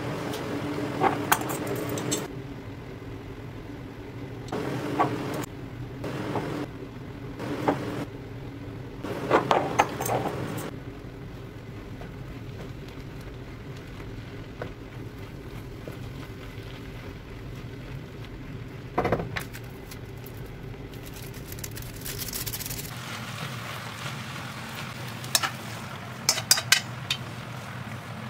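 A wooden spatula stirring vegetables in a frying pan, making bursts of knocks and scrapes against the pan over a steady low hum.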